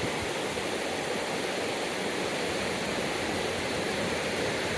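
Steady rush of river water, an even noise with no changes.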